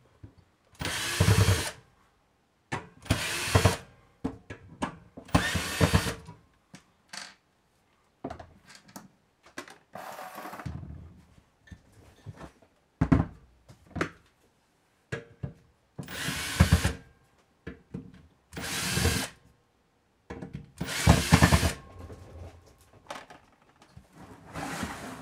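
Electric drill-driver running in short bursts of about a second, eight times over, backing screws out of the inverter's sheet-metal case, with small clicks of screws and handling between the runs.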